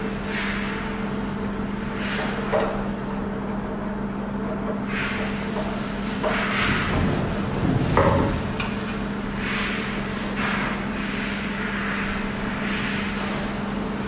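Rustling, clicking and knocking of wire leads and terminal-block screws being handled while output wires are fitted to a terminal block, with a couple of sharper knocks about a third of the way in and past the middle. A steady low hum runs underneath.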